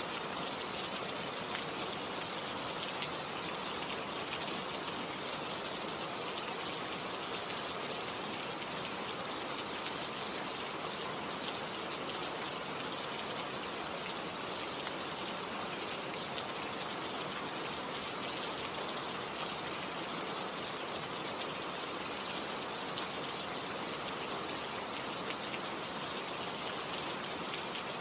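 Steady rain falling, a dense even hiss with many fine drop patters.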